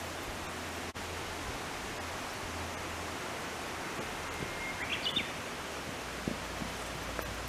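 Steady outdoor background hiss, with one short high chirp about five seconds in.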